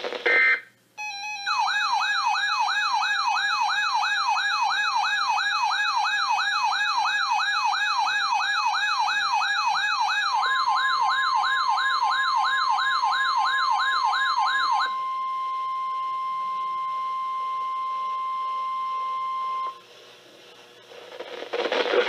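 Several NOAA weather-alert radios sounding their alarms together for a Flash Flood Watch. It starts with a short beep, then an electronic warbling siren sweeps up and down about three times a second, with higher warbles above it. About ten seconds in, a steady weather-radio alert tone joins; the warbling cuts off partway through and the steady tone ends a couple of seconds before the radio voice returns.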